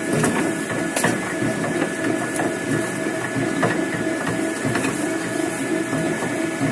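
Electric leaf-and-branch shredder running, its motor and spinning blade rotor giving a steady mechanical whir with scattered clicks and rattles.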